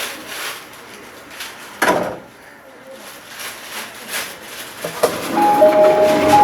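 E501 series train door chime beginning about five seconds in, two steady tones alternating over and over. There is a single thud about two seconds in.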